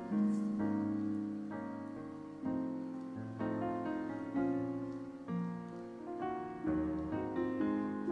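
Background solo piano music, slow, with a new chord or note sounding about every second.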